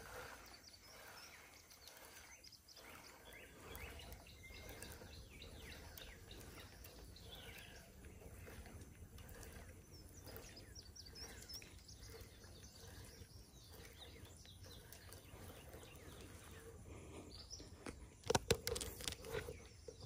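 Faint outdoor ambience by a pond, with scattered small bird chirps; near the end a short cluster of louder clicks and rustles.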